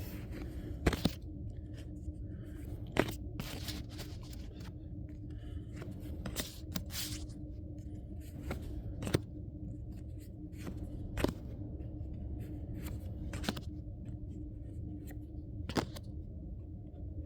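Pokémon trading cards being handled and flipped through by hand. There are short, sharp snaps of card against card every second or two over a steady low hum.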